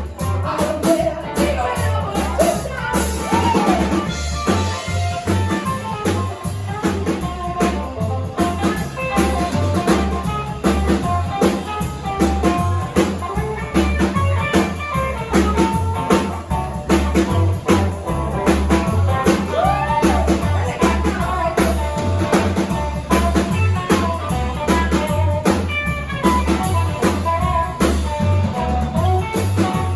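Live rock and roll band playing: guitar, bass and drums on a steady beat, with singing over the top.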